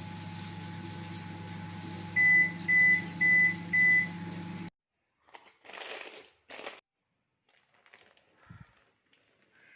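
Microwave convection oven running with a steady hum, then four short high beeps about half a second apart, signalling the end of the baking cycle. The hum stops abruptly about a second later, followed by a couple of brief handling noises.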